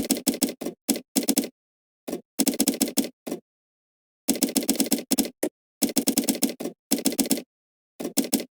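Computer keyboard typing in quick runs of keystrokes, several bursts broken by short pauses, with total silence between the bursts.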